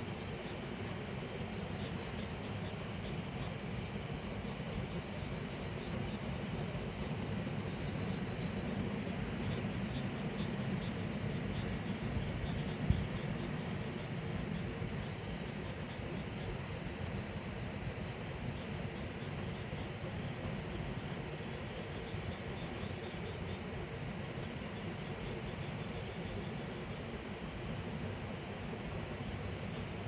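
Night-time outdoor ambience: a steady low rumble of distant road traffic under the fast, continuous chirping of insects such as crickets. A single short click sounds about halfway through.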